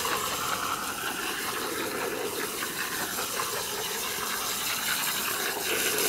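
Sharp stream of water from a garden hose spraying into dry cement mix in a metal wheelbarrow: a steady rushing splash as the stream is moved back and forth, louder just before the end.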